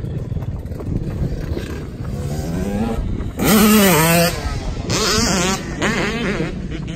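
Dirt bike engine revving up and down in quick throttle blips. A loud rush of noise comes about three and a half seconds in, as the bike goes down in the dirt, and another shorter one about five seconds in.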